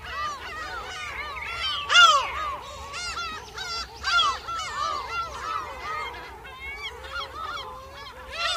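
A dense chorus of short animal calls, many overlapping at several a second, each one rising then falling in pitch.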